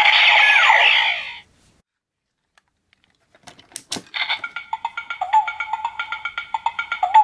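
DX Mirai Driver toy belt: a short electronic sound with a falling tone, then a few plastic clicks as the Shinobi shuriken face plate is snapped on, and from about four seconds in the belt's electronic standby loop, a steady tone over a quick repeating beat.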